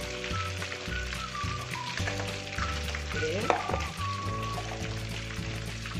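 Chopped tomatoes and onions sizzling in a hot frying pan as water is poured in and stirred with a metal spatula, with a sharp clink of the spatula against the pan about three and a half seconds in.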